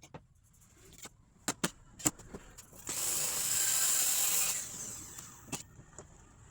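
Woodworking sounds: several sharp clicks and knocks of tools and wood being handled, then a loud hissing burst of about a second and a half, about three seconds in, with two more clicks near the end.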